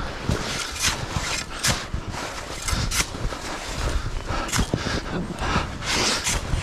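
Avalanche shovel digging into packed avalanche snow: repeated scoops and throws of snow in irregular strokes, about one every second, while digging down to a buried victim marked by a probe strike.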